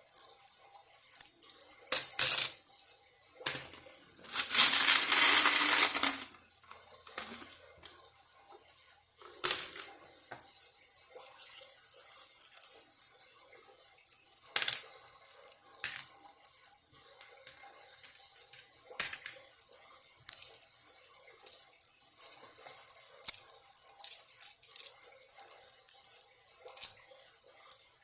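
Coins clinking and clacking as loose change is sorted by hand, in many irregular sharp clicks. About four seconds in comes a continuous rush lasting a couple of seconds.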